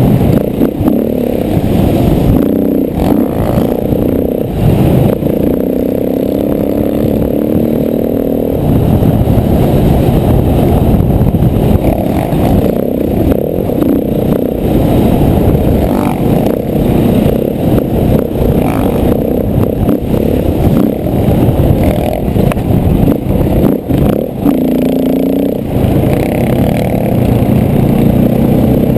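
KTM 450 dirt bike's single-cylinder four-stroke engine running and revving up and down as it rides rough trail, its pitch rising and falling, with clatter and scraping from the bike over rocks and ruts.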